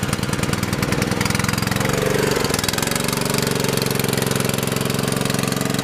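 Engine of a runway/aircraft de-icing unit running steadily at idle with a fast, even firing beat, settling after about the first second.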